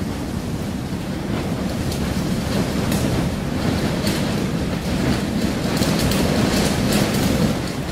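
Storm sound: a steady rushing, wind-like noise with a deep low rumble and a few brief crackles, easing off slightly near the end.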